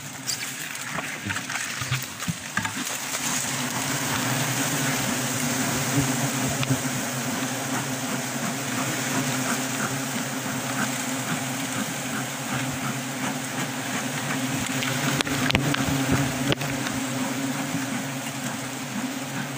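A dense colony of wild honey bees buzzing steadily on their open comb, over a steady hiss from the smoker blowing smoke onto them. The buzz builds over the first few seconds as the smoke reaches the bees.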